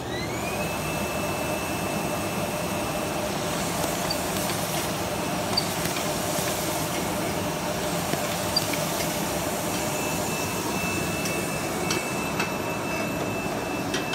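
Wine bottle labeling machine running. A high whine rises in pitch as it starts and then holds steady over a constant mechanical hum, fading out for a while and coming back near the end, with a few sharp clicks.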